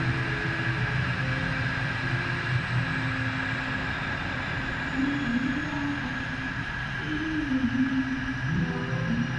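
A steady engine rumble with a constant high whine over it, and a few wavering tones about halfway through.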